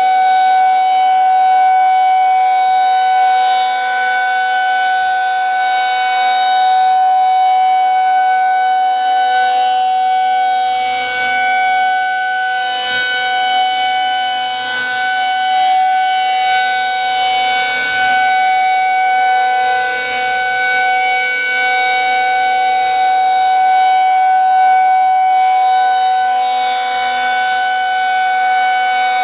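Federal Signal 2001-SRNB outdoor warning siren sounding a steady single-pitch alert tone at full speed during a test. The pitch holds constant while the loudness swells and fades gently as the rotating head turns.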